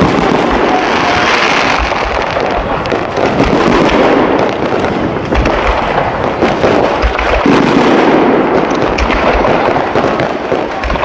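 Fireworks display: a dense, unbroken barrage of many shells bursting at once, with crackling between the bangs.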